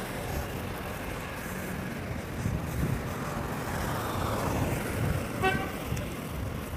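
Road traffic on a city street: a steady hum and rush of passing cars, with one brief pitched beep about five and a half seconds in.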